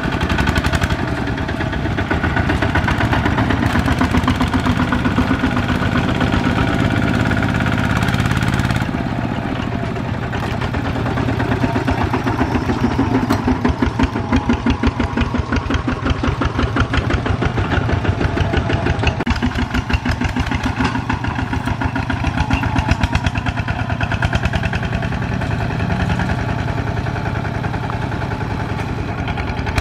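Single-cylinder diesel engine of a Kubota ZT120 two-wheel walking tractor running under load while hauling a trailer of rice sacks, with steady rapid firing beats. The sound changes abruptly about nine seconds in.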